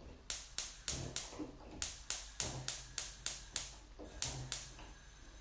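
Gas hob spark igniter clicking rapidly, about three clicks a second, in three bursts with short pauses, as a burner is lit.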